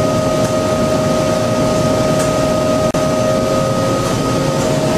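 Steady drone of machine-shop equipment, a machining center running, with a constant whine held over the noise; the sound drops out for an instant about three seconds in.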